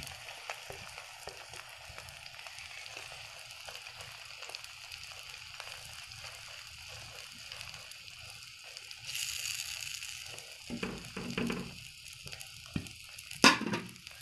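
Omelette sizzling in oil in a frying pan over a low flame, while a spatula scrapes and spreads fried onion, capsicum and tomato across it. The sizzle swells briefly about nine seconds in, and one sharp knock comes near the end.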